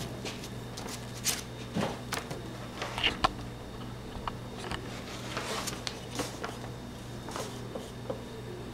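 Handling noise on a workbench: a few light knocks and taps as a glue bottle is set down and a scrap of wood picked up, then softer scraping as the wood scrap spreads wood glue across a board's face. A faint steady hum sits underneath.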